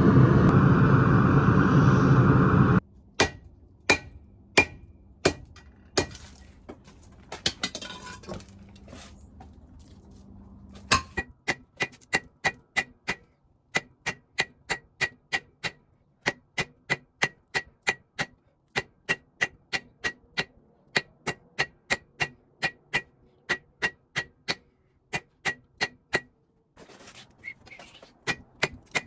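A loud steady rushing noise that cuts off about three seconds in, then a smith's hammer striking sword steel on an anvil, each blow ringing: a few slow blows at first, then steady hammering at about two to three blows a second.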